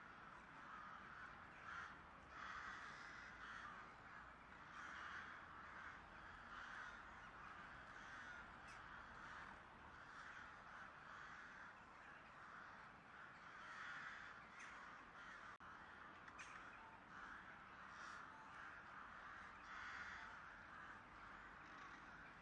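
Crows cawing faintly, one call every second or two.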